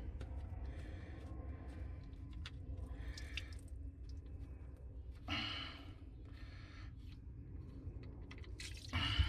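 Faint clicks and handling noises of drain plugs being threaded back into a boat engine block by hand, over a low steady rumble, with a brief louder rustle about five seconds in and again near the end.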